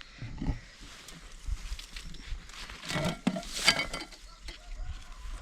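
Rustling with scattered light knocks and clinks as a carried back basket is set down and handled.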